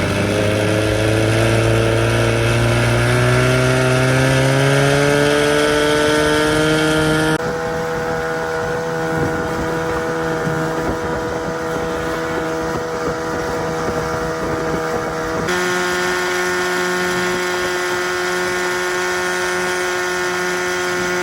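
25 hp Johnson two-stroke twin outboard motor under way, rising steadily in pitch as the boat speeds up over the first seven seconds, then running at a steady speed. Twice the engine note jumps abruptly to a different steady pitch.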